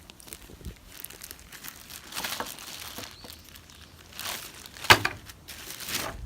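Plastic packaging crinkling and rustling as it is handled and opened, with one sharp click about five seconds in.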